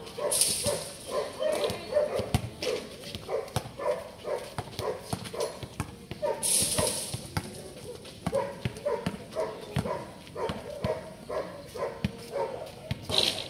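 Basketballs bouncing on an outdoor concrete court: a steady patter of short, ringing thuds, two to three a second, from several balls being dribbled and dropping after shots. A short high hiss comes three times: near the start, about halfway and near the end.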